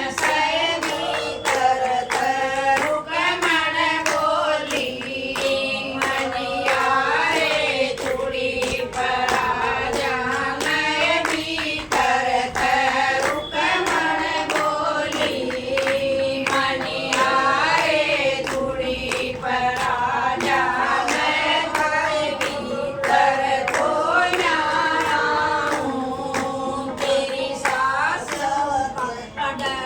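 A group of women singing a Haryanvi folk song in chorus, with a steady beat of hand claps.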